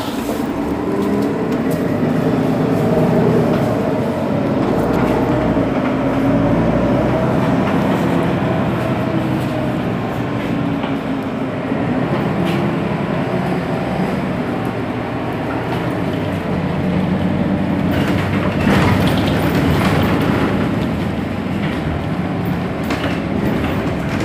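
Mercedes-Benz Citaro bus's OM 457 hLA six-cylinder diesel engine idling steadily while the bus stands at a stop, heard from behind the rear engine bay. A few brief clicks about three-quarters of the way in.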